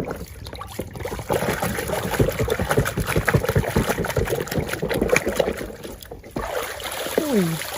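Water splashing and sloshing as a muddy toy bus is scrubbed clean in a container of water, in quick irregular splashes that stop about six seconds in.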